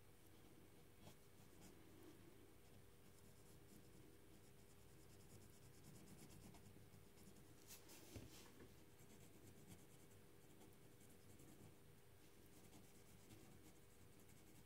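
Near silence, with very faint scratching of a pen on paper and a slightly louder scratchy rustle about eight seconds in, over a low steady hum.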